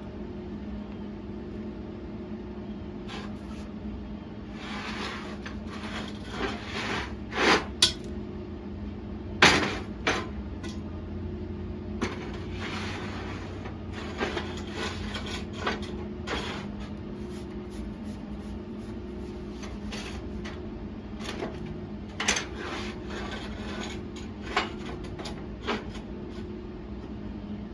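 Metal clanking and knocking, with a few sharp loud strikes and short scraping or hissing stretches, over a steady low hum: steel pieces being handled and worked in a shop.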